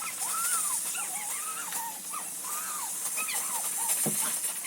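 Kitfort KT-555 steam cleaner hissing steadily as it steams an upholstered chair cushion. Over the hiss run many short, squeaky chirps that rise and fall in pitch.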